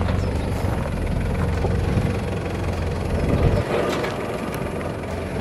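Toyota Land Cruiser Prado 90 engine running at low revs as the 4x4 crawls up a rocky dirt track, with loose stones crunching under the tyres. The deep engine note drops away about three and a half seconds in.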